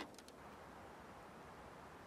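Near silence: faint background hiss, with a few faint clicks right at the start.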